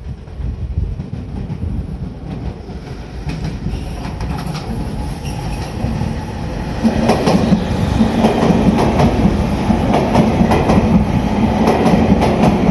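Sotetsu 7000-series electric commuter train running into and along the platform. Its wheels click over the rail joints, and the sound grows much louder about seven seconds in as the cars come alongside, with a steady low hum underneath.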